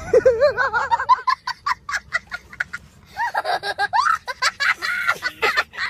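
Laughter in short, quick bursts.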